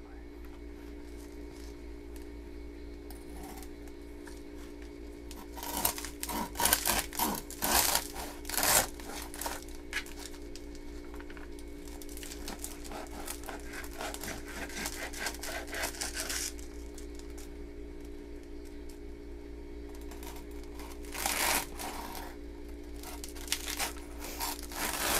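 A knife sawing through the crust of a freshly baked loaf, the crust crackling and crunching in irregular bursts: a dense cluster of strokes about six to nine seconds in, a longer stretch of cutting from about twelve to sixteen seconds, and more short strokes near the end. A steady low hum runs underneath.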